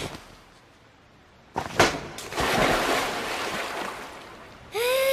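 Bath water splashing: a sudden splash about a second and a half in, then sloshing that slowly dies away. A short voice sound comes near the end.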